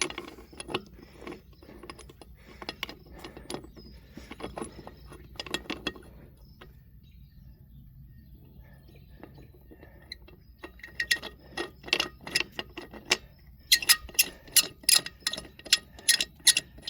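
Hand wrench working the lug nuts on a trailer wheel: a run of sharp metal clicks and clinks, faint and sparse in the middle, then quicker and louder for the last several seconds.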